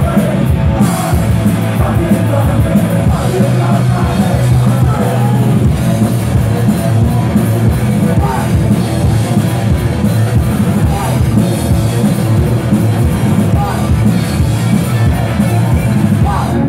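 Live punk rock band playing loud: shouted vocals over distorted electric guitar, bass and a driving drum beat.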